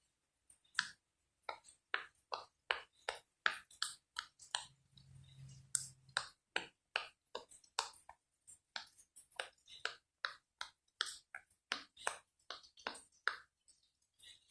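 Silicone Pop It fidget toy bubbles being pressed through one after another, giving a steady run of short, sharp pops at about two or three a second.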